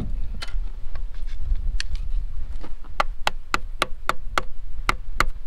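Metal hand tool working at a bolt on a cast-iron engine block: a few scattered sharp metallic clicks, then from about three seconds in a steady run of sharp clicks about three to four a second.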